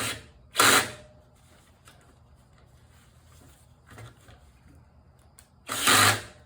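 Short sharp noisy bursts of tools and parts being handled on a lawn mower: two near the start and two more near the end, with a quiet stretch between.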